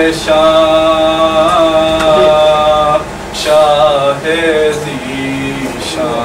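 A man chanting a devotional recitation in long held, slightly wavering notes: three sung phrases, the first held almost three seconds and the last on a lower note.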